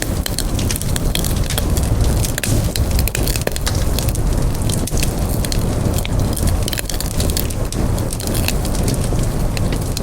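Campfire burning, with dense, irregular crackles and sharp pops from the burning wood over a steady low rumble.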